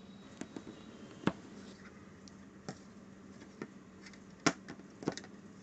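Hard plastic phone cover being handled: scattered light clicks and taps, the sharpest about a second in and again about four and a half seconds in, over a faint steady hum.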